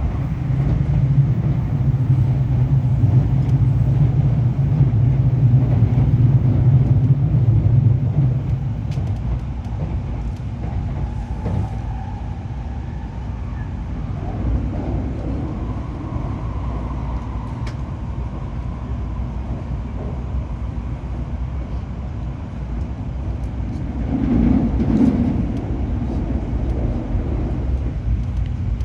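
Running noise inside a Tokaido Shinkansen 700 series car: a steady low rumble, with a stronger low drone that drops away about eight seconds in and a brief swell near the end.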